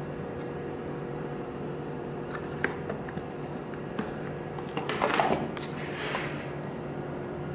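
Small items and packaging being handled: a few light clicks and a short rustle about five seconds in, over a steady electrical hum.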